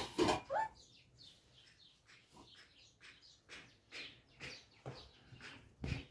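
Faint, scattered short chirps of small birds, several a second, with a brief knock near the end.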